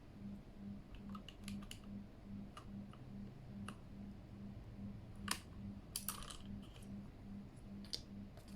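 Plastic keycaps clicking and clattering as they are handled and fitted onto a Keychron K8 mechanical keyboard. The clicks are scattered and irregular, a few louder ones past the middle, over a faint pulsing low hum.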